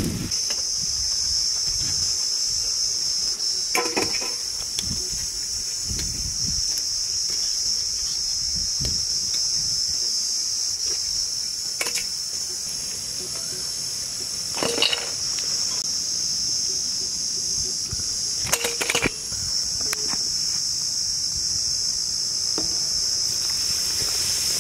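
Bread pakoras deep-frying in hot oil: a steady high sizzle, with a few brief louder sounds over it.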